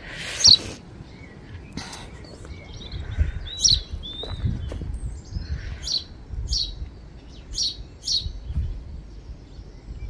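A small bird chirping: short, high calls that drop in pitch, a loud one about half a second in and then a run of about five, one every half second to a second, in the second half. A low, uneven rumble runs underneath.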